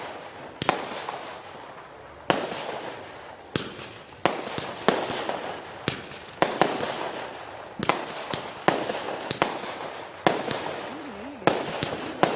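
Fireworks cake firing a rapid series of aerial shots: about fourteen sharp bangs at irregular intervals of roughly a second or less, each trailing off in a fading echo.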